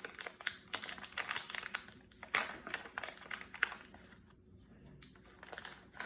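Plastic packaging crinkling in irregular crackles as it is pulled open wider and handled to scoop out baking soda.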